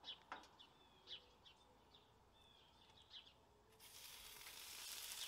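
Bacon starting to sizzle on the hot steel top of a Blackstone griddle as the first strip is laid down about three-quarters of the way in, a hiss that grows louder. Before it, faint bird chirps.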